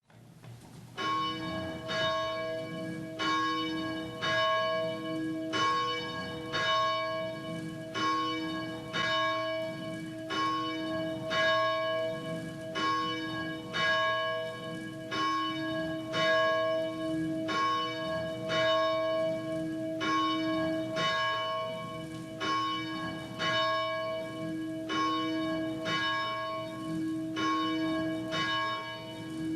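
Church bell tolling steadily, a stroke a little under every second, starting about a second in, each stroke ringing on into the next.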